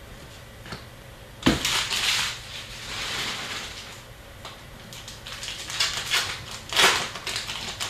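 Foil wrapper of a hockey trading-card pack crinkling as it is handled and torn open, in two bursts of rustling: the first begins with a sharp knock about a second and a half in, the second runs from about five seconds and is loudest near the end.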